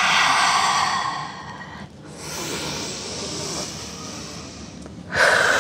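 A woman breathing audibly in time with cat-cow yoga movements. A long, strong exhale fades over the first two seconds and is followed by a softer inhale. A second strong exhale starts suddenly about five seconds in.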